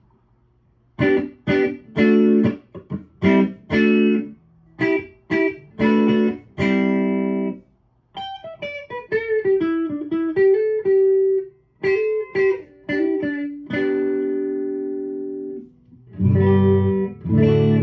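Fender Player Telecaster electric guitar with Seymour Duncan pickups, played on the bridge pickup through a Boss Katana amp's clean channel. Short chord stabs that are cut off sharply, a quick single-note run about eight seconds in, then more chords, with fuller, lower chords near the end.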